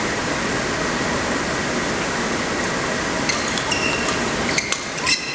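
Badminton rally on a hall court over a steady rushing hall noise: court shoes give a few short squeaks from a little past halfway, and two sharp racket strikes on the shuttlecock come near the end.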